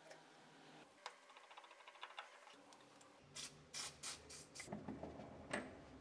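Small metal clicks and scrapes of a screwdriver working on a chrome faucet handle as the handle is taken off the valve stem. The clicks are light at first and louder and closer together about three seconds in.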